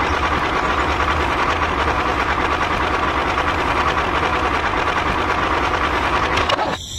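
Small engine running steadily with a fast knocking rattle, cutting off abruptly near the end.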